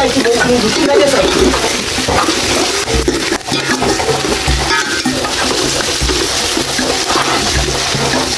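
Fish and tomatoes frying in a pot, a steady sizzle with a spoon stirring. A slow bass beat of background music thumps underneath about once every second and a half.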